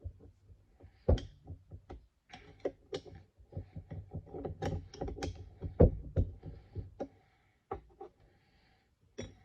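Irregular metal clicks and knocks as a stuck square-head bolt is worked loose from an old Armstrong pipe vise, with two harder knocks about a second in and near six seconds in.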